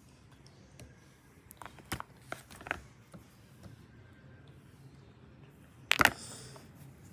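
Makeup containers being handled: a few light clicks and taps of small cases picked up and set down, then one louder brief knock with a short scrape about six seconds in.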